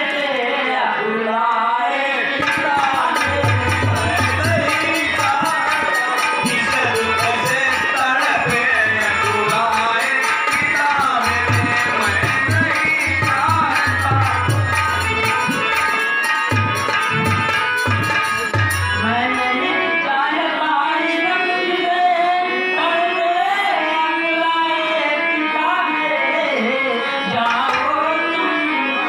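Sung verse over a microphone and PA, accompanied by a hand drum (tabla-style) that plays from about three seconds in until about two-thirds of the way through, with a fast regular ticking of small cymbals on top. After the drum stops, the singing goes on alone.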